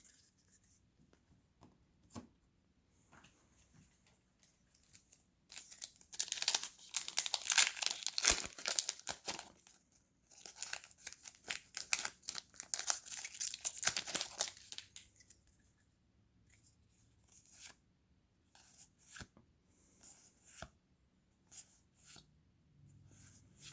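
A Pokémon TCG booster pack's foil wrapper being torn open and crinkled, in two long crackly stretches, followed by scattered light clicks of handling.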